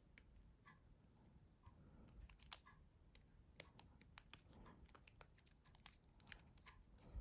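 Faint, irregular small clicks and taps from the parts of a Nokia 6700 Classic mobile phone being handled during reassembly, the plainest about two and a half and three and a half seconds in.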